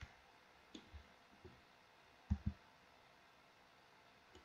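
A few faint computer mouse clicks, with a louder double click a little past halfway.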